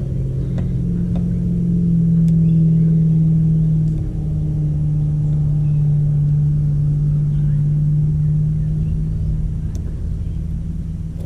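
A machine motor running with a steady low hum that drops slightly in pitch about four seconds in. A few faint clicks from loose stripped copper wire being handled sit on top of it.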